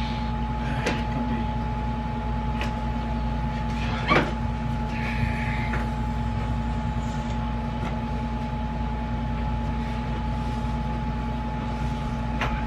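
Window air conditioner running with a steady low drone and a constant hum. A few light knocks sound over it, the loudest about four seconds in.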